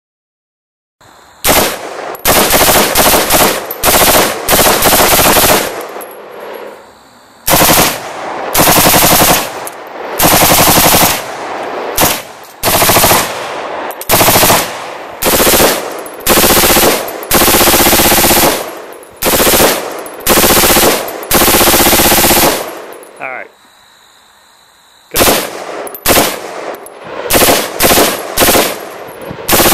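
Fully automatic rifle fire from an M16A2, a Czech vz-58 and a Polish AK-47: repeated bursts of rapid shots, each about one to three seconds long, with short pauses between them.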